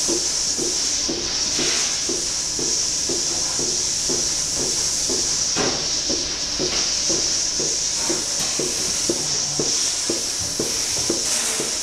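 Lely Astronaut A3 Next milking robot running while milking a cow: a steady air hiss with a rhythmic pulsing, about two to three pulses a second.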